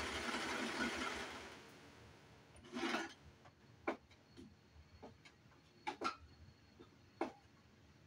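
Brother four-thread serger running steadily, then coming to a stop about a second and a half in. Then a few light taps and a short rustle as the fabric is handled under the machine.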